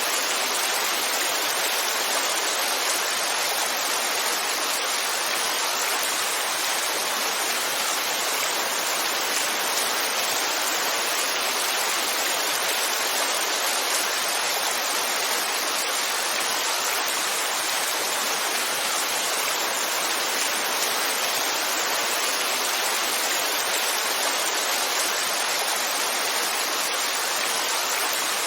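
Heavy rainfall: a steady, even hiss of dense rain with no separate drops or changes.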